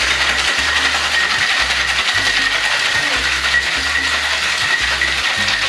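Background music, loud and continuous, with a low bass line in short repeated notes and a held high tone.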